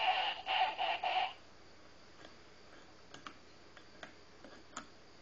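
A brief muffled sound in the first second or so, then a few faint, scattered metallic ticks and scrapes of a bottle opener working on a beer bottle cap without lifting it.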